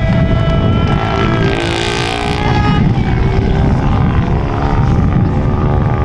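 Rally car engine revving hard as the car drives past, its note rising and falling. Wind rumbles on the microphone, and a brief hiss comes about two seconds in.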